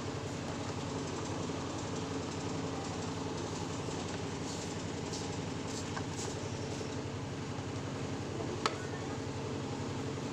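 An engine idling steadily with an even, pulsing hum; a single sharp click comes near the end.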